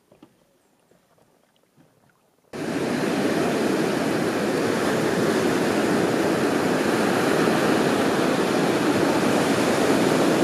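Near quiet with a few faint ticks, then, about two and a half seconds in, a sudden switch to the steady, loud rush of ocean surf breaking on a sandy beach.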